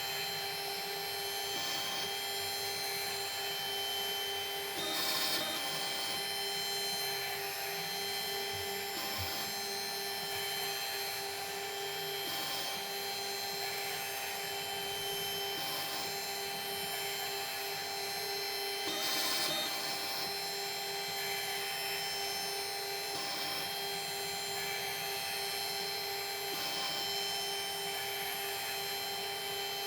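Milling machine running steadily with a cutter working a small metal part. Its steady whine dips briefly about every three to four seconds.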